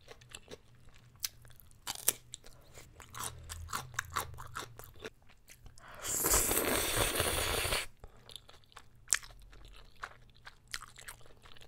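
Close-miked chewing and biting with crisp crunching clicks. About six seconds in comes a loud slurp of black bean noodles lasting nearly two seconds, then the chewing carries on.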